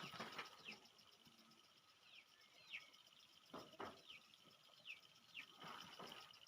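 Faint outdoor ambience: a bird chirping over and over in short falling notes, over a steady insect-like hum, with a few soft rustles or steps.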